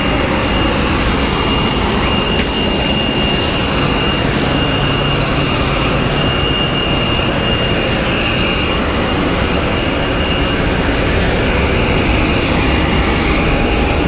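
Steady jet turbine noise on an airport apron: a loud, even rush with a constant high whine.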